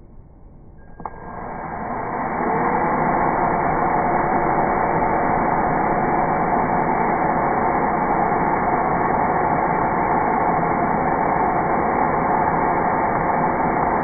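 Cordless drill motor started about a second in, spinning up over a second or so and then running at a steady speed, its bit in a thin plywood drawer rail.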